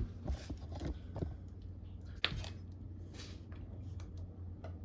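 Quiet handling noises of parts and tools in a garage: light rustling and a few clicks, with one sharp click about two seconds in, over a low steady hum.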